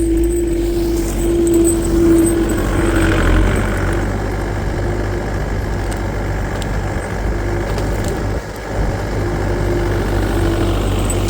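New Holland L225 skid loader running, its engine droning steadily with a whine on top. The level dips briefly about eight seconds in.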